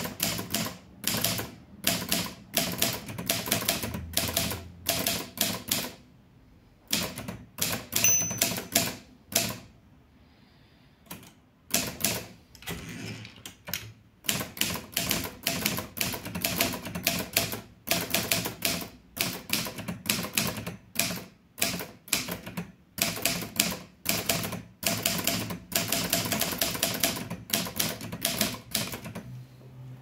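Litton Royal 203 manual portable typewriter being typed on in quick runs of key strikes, the typebars clacking against the platen, several strokes a second, with a short pause about ten seconds in.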